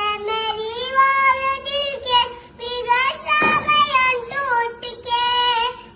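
A high-pitched, child-like voice singing unaccompanied in long wavering phrases, with short breaks between them.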